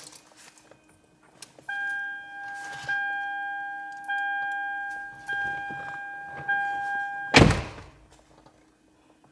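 Toyota Camry's dashboard warning chime rings with the key in the ignition: five even tones about a second apart. It stops near the end, right before one loud thunk.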